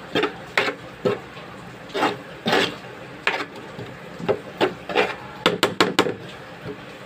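A utensil scraping against cookware in short, irregular strokes, about fifteen of them, with a quick run of four about five and a half seconds in.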